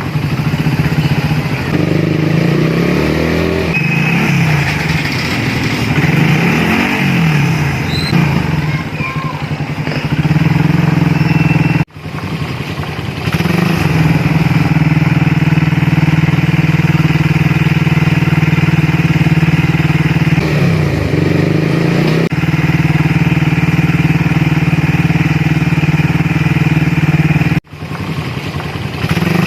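Suzuki Raider R150 carburetted single-cylinder engine running through a 51 mm big-elbow exhaust header and stock canister, mostly at a steady idle. It is blipped several times in the first eight seconds and once again about two-thirds of the way through, the revs rising and falling each time. The sound cuts out briefly twice.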